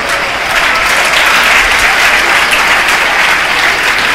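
A large room full of students clapping, a sustained round of applause that swells slightly about half a second in.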